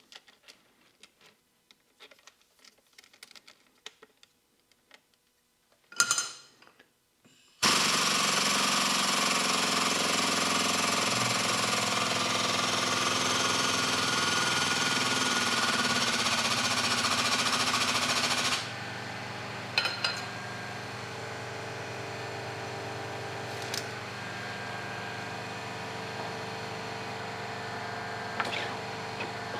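Air-over-hydraulic foot pump running with a loud, rapid pneumatic chatter for about ten seconds, building pressure in a hydraulic hose crimper. It cuts off sharply, leaving a quieter steady machine hum with a few clicks. Before the pump starts there are faint handling clicks and a short sharp burst.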